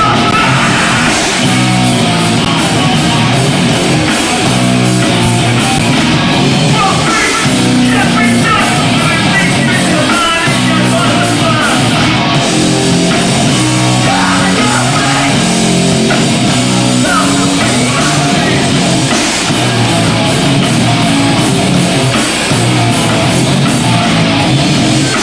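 Hardcore band playing live, loud and distorted: heavy guitar and bass riffing with drums, and some shouted vocals.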